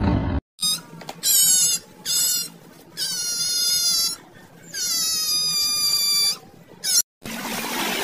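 A series of about five high-pitched squealing animal calls, each held from half a second to over a second. Just after 7 seconds the calls give way to a steady rushing hiss.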